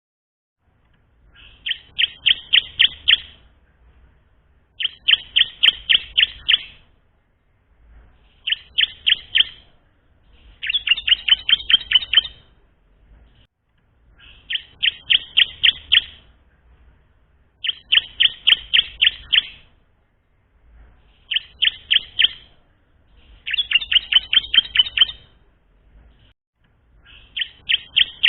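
A ciblek (bar-winged prinia) practising its song: short phrases of quick repeated chirping notes, about nine phrases, each a second or two long with brief pauses between.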